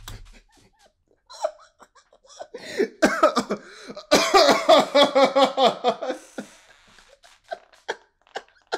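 A man laughing hard, muffled behind his hand: a few short breaths, then a run of rapid laughs about three to six seconds in, trailing off into breathy gasps.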